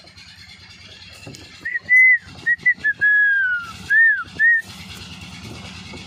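A person whistling a short run of clear notes, starting about a second and a half in: a held note, quick short ones, a long note sliding down, then two brief arched notes. A low steady rumble continues underneath.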